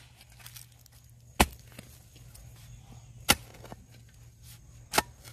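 Steel spade chopping into garden soil three times, about two seconds apart, digging a planting hole.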